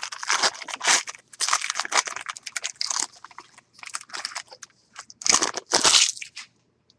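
Foil wrapper of a trading card pack being torn open and crinkled by hand: crackling rustles through the first three seconds, then a last loud burst of crinkling about five seconds in.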